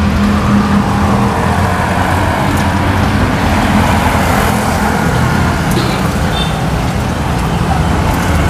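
Steady engine drone with road traffic noise, a constant low hum running throughout.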